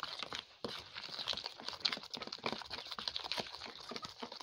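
Wooden spoon beating thick cake batter in a plastic bowl: quick, irregular scrapes and taps against the bowl, with wet squelches from the batter.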